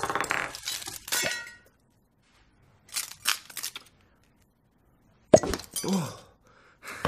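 Thin glass Christmas ornament crunching and crackling as it breaks apart, then shards clinking in a few sharp bursts about three seconds in. About five seconds in comes a sharp hit followed by a short sound falling in pitch.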